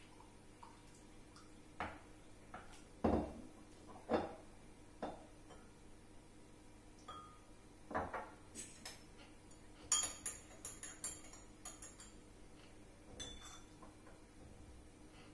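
Glassware knocking and clinking on a kitchen countertop as a glass jug of tea and a glass mug are handled and set down, with the loudest knock about three seconds in. About ten seconds in, a quick run of light clinks of a metal spoon against the glass.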